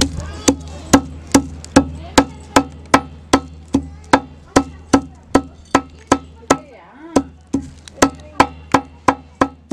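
Green cardamom pods being pounded on a hard surface to crush them for the sweet filling: sharp, even knocks about two and a half a second, with a short pause near the end, over a steady low hum.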